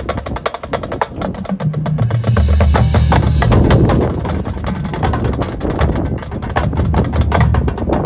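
Marching band playing, with rapid drumline strokes over low held brass notes.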